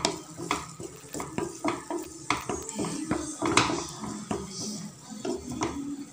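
Spatula stirring and scraping chopped onion, ginger and garlic in sauce around a nonstick frying pan: a quick, irregular run of scrapes and knocks against the pan.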